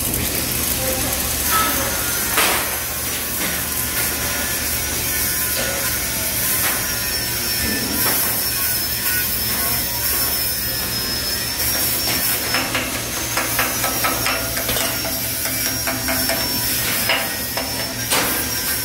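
CO2 welding arc crackling on a steel H-beam corner joint, then stopping. Near the end a hand tool knocks and scrapes at the fresh weld in a run of quick strikes. Under it all runs a steady noise with a high whine.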